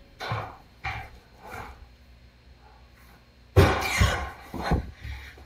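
Footsteps going down a staircase: three steps about two-thirds of a second apart, then a louder run of heavy thumps and scuffs from about halfway through.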